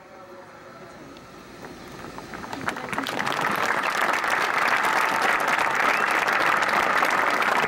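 Crowd of spectators applauding. The clapping starts faintly and builds to steady, loud applause by about three seconds in.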